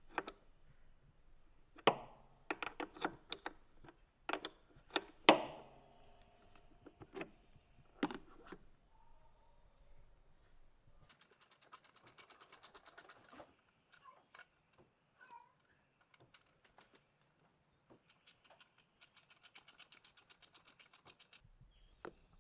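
Faint metallic clinks and knocks of a wrench working the car battery's terminal clamp, as the battery is disconnected. Later come two stretches of rapid, even clicking from hand tools under the car.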